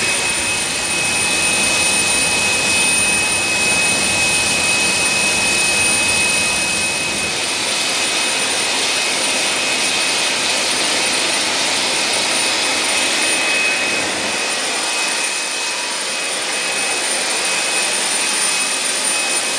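Jet turbine running steadily on an airport apron: a continuous rushing hiss with two thin, steady high-pitched whining tones over it.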